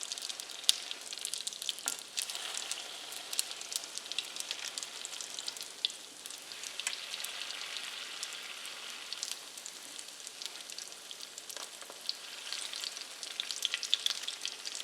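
Pieces of dough frying in a pan of oil and butter: a steady sizzle with frequent crackling pops, busier near the end.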